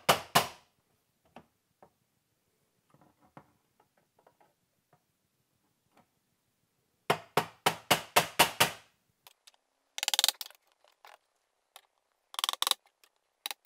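Small hammer tapping a metal punch to mark screw holes in a dog-flap frame: a couple of taps at the start, then a quick run of about eight sharp taps about seven seconds in, and a few shorter runs of taps near the end.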